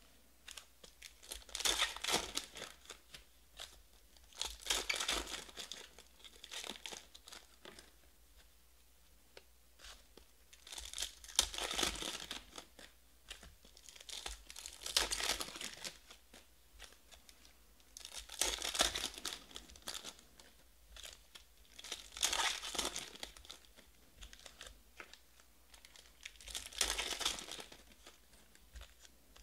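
Foil sports-card pack wrappers being torn open and crinkled by hand, in about seven bursts of a second or so, every few seconds.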